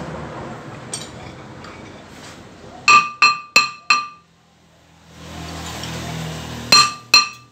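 Ball-peen hammer tapping the rim of a cast-iron brake rotor clamped in a lathe's four-jaw chuck, each blow giving a short metallic ring. Four quick taps about three seconds in, then two more near the end, nudging the disc toward true centre against a surface gauge.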